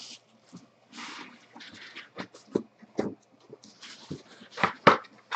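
Cardboard trading-card hobby box being opened and handled: rubbing and sliding of the lid and packs, with scattered taps and a louder pair of knocks near the end.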